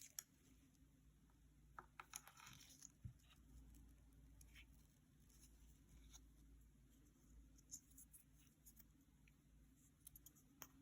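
Near silence with faint handling noises: scattered small clicks and a brief rustle about two seconds in.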